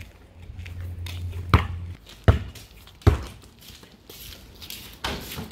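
Three dull thumps about three-quarters of a second apart, with a low wind rumble on the microphone for about the first two seconds.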